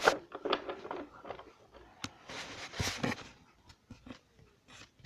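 Toys or objects being handled close to the microphone: a string of light clicks, taps and brief rustling scrapes.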